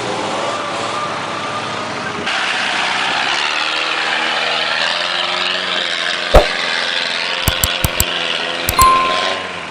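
An off-road 4x4's engine running and working, its pitch shifting up and down. Sharp knocks and clunks come in the second half: one a little past the middle, then a quick run of four more, and a couple more near the end.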